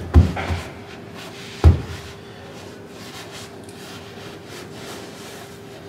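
Hands patting glued carpet down onto a car's floor: a dull thump just after the start and another, louder one a little under two seconds in, then quieter rubbing and pressing over a steady faint hum.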